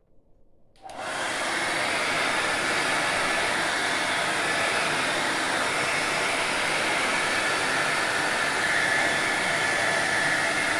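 Handheld hair dryer switched on about a second in, then running steadily, blowing air over a freshly bathed dog's fur.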